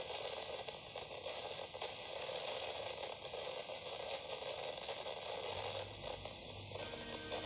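Radio static: a steady untuned hiss with small crackles. A low hum comes in near the end.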